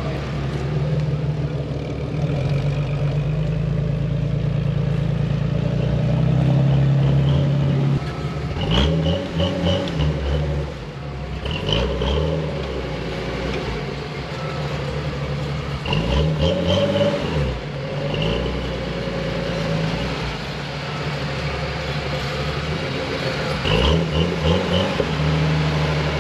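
Lifted Jeep Cherokee XJ's engine pulling under load on a rough dirt trail, revving up and down in several bursts as the driver works the throttle over the ruts.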